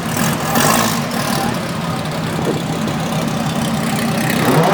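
Car engine idling steadily, with a noisy haze over it that swells in the first second.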